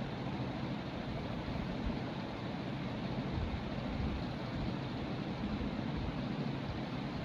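Dayton 56-inch industrial ceiling fan, a Leading Edge/Marley design, running at a steady speed: an even rush of moving air with a low rumble.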